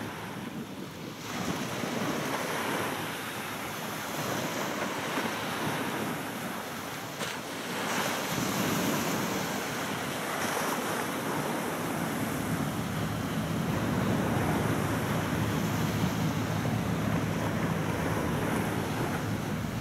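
Wind buffeting the microphone over small waves washing on the shore, in gusts. A low engine hum from a small inshore fishing boat heading in grows stronger in the second half.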